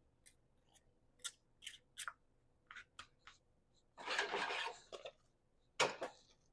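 Kitchen utensils and food containers being handled: a scatter of light clicks and taps, a longer scraping rustle about four seconds in, and a sharp clack near the end.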